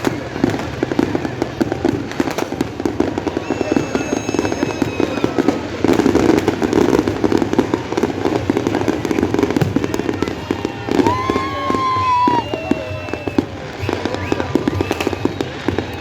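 Aerial fireworks display: dense, continuous crackling and popping bursts, busiest around six to seven seconds in. A few high whistling tones come through, the clearest about eleven seconds in.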